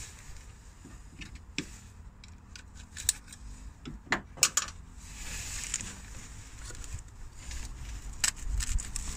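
Hands fitting a coolant hose onto a Range Rover L322's auxiliary heater water pump: scattered sharp plastic clicks and knocks, with rustling as a jacket sleeve brushes close by near the end.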